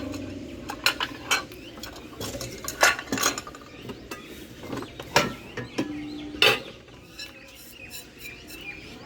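Metal non-stick pans being handled, knocking and clinking against each other in a series of sharp clanks, with a brief ringing tone a little before the last loud clank. The clanks come close together in the first half and die down near the end.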